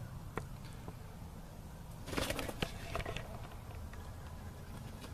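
A game fowl rooster flapping its wings in one short flurry about two seconds in, over a steady low rumble.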